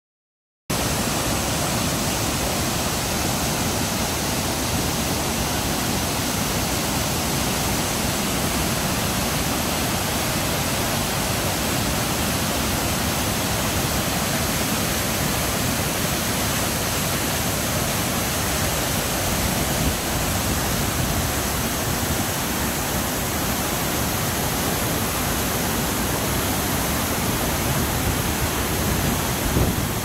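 Waterfall in heavy flow pouring over rock ledges into rapids: a steady, unbroken rush of water. It cuts in suddenly just under a second in.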